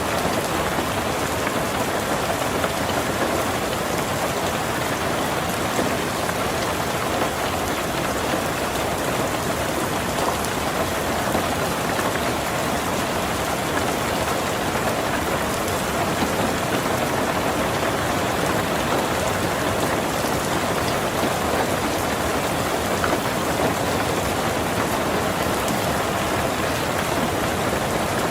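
Heavy rain drumming steadily on a tin roof: a dense, even wash of drops with no single strike standing out.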